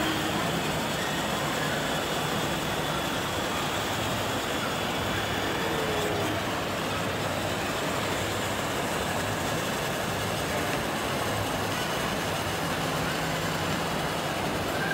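Steady hum and hiss of a busy shopping-mall interior, with a faint high whine in the first half.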